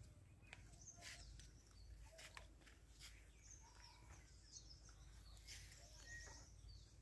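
Near silence: faint outdoor ambience with a few distant bird chirps now and then.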